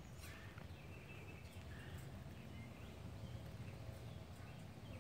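Quiet outdoor ambience: a steady low rumble with a few faint, short chirps scattered through it.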